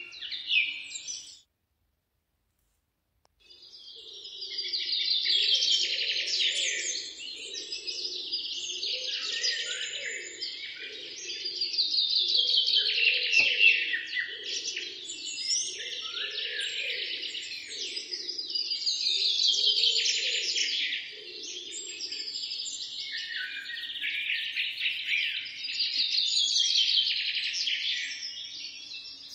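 Birds chirping and twittering in a dense chorus that swells and fades in slow waves. It cuts out completely for about two seconds near the start, then returns.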